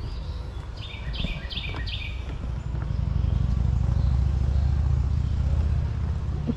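A songbird calls a quick run of four repeated chirping notes about a second in. Under it runs a steady low rumble, which grows louder midway through.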